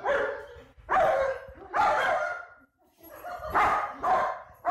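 Dogs giving loud, excited barks and yelps in a string of short calls, the sound of dogs overjoyed to greet their returning owner.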